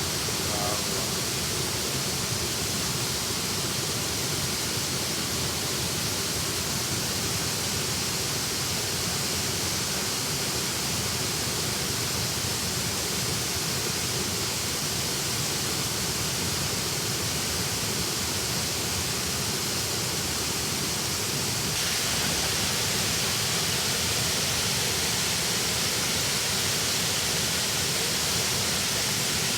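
Waterfall's falling water rushing steadily, an even noise across high and low pitches that grows slightly louder about three-quarters of the way through.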